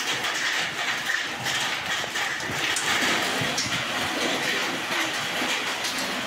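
Hailstorm: hailstones and heavy rain coming down in a steady rushing hiss, with many small sharp ticks of stones striking.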